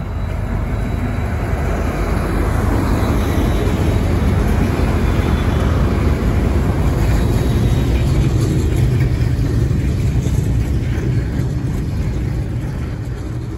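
Diesel locomotive hauling a goods train past at close range: a steady low engine drone over the noise of the wagons rolling on the rails. The sound fades out near the end.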